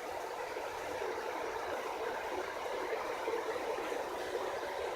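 1980s 36-inch Satellite Baja Series ceiling fan running on high speed: a steady rush of air from the spinning blades.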